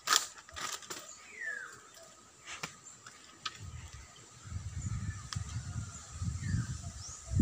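Dry twigs and brush snapping and crackling underfoot as someone pushes through scrub forest, with a few sharp snaps in the first three seconds. A couple of short falling bird chirps, and a low rumble of wind on the microphone that builds from about halfway.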